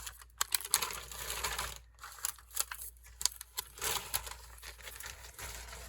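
A plastic bag rustling and crinkling as it is handled and packed, with scattered small clicks and taps.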